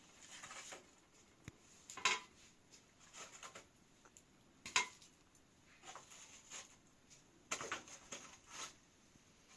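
Kitchen dishes and utensils being handled, making scattered clinks and knocks. The sharpest come about two seconds in and just before five seconds, with a quick run of them near the end.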